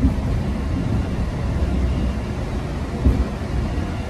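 Steady low rumble of a new MBTA Red Line subway car running through the tunnel, heard from inside the car, with a brief thump about three seconds in.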